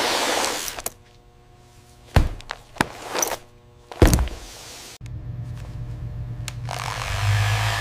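Factory machinery sounds: a hiss fades out, then four heavy mechanical thunks follow a second or so apart. After an abrupt change, a low steady machine hum sets in and a hiss builds over it near the end.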